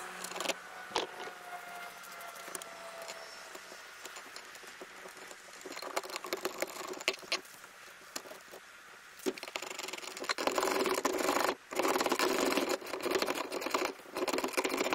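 Socket ratchet clicking in quick runs as nuts are tightened on the bolts of a metal roof-rack bracket, with the busiest, fastest clicking in the last few seconds. Scattered single clicks and a faint low hum come before.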